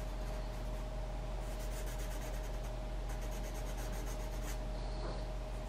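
Graphite pencil scratching on paper in repeated short shading strokes, blocking in dark shadow areas, over a faint steady electrical hum.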